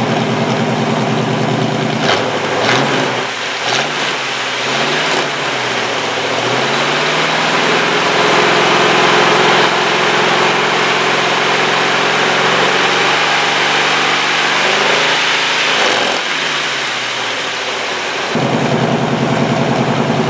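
Chevy 350 small-block V8 running, heard from the exhaust end. It is blipped up and down a few times, then held at a raised speed for several seconds before settling back to idle near the end. The engine is worn and burning oil; the owner puts this down to oil blowing past the piston rings.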